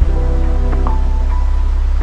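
Background music: a steady deep bass with held chord notes and a few sharp accents.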